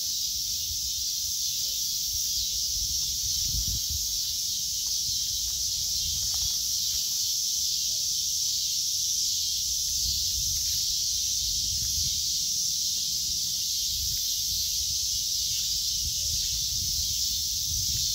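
A steady, high-pitched insect chorus, with the uneven low rustle and thuds of footsteps through leaf litter and the phone being handled.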